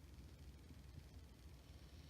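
Near silence: a low steady room hum in the gap between a sleeper's breaths, with no breath or snore heard.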